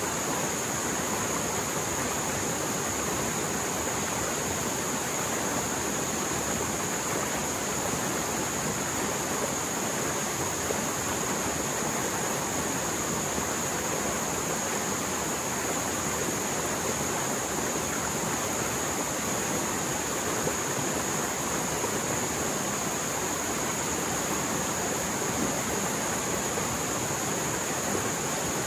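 Mountain stream in spate after heavy rain, water rushing fast and loud in a steady, unbroken rush. A steady high-pitched tone runs over it.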